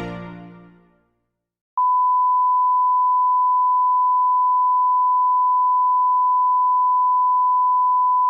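Music fades out, then after a short silence a single steady test tone sounds for about six seconds and cuts off abruptly: a broadcast sign-off tone at the end of transmission.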